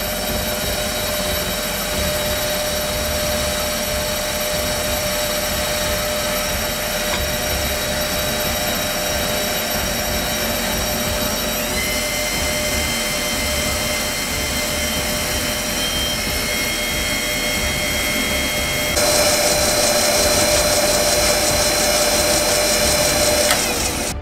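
Wabeco D6000 metal lathe running and turning a spinning steel disc, a steady machine whine with several high tones over cutting noise. The tones shift about halfway, the sound steps louder about three-quarters of the way in, and it cuts off suddenly just before the end.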